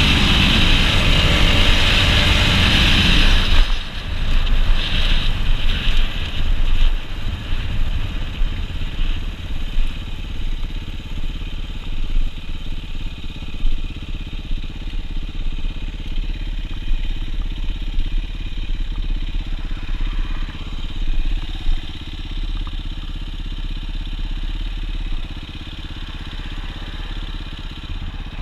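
Dirt bike engine running hard at high revs, then the throttle shuts about three and a half seconds in and the engine drops to quieter running that rises and falls as the bike rolls along.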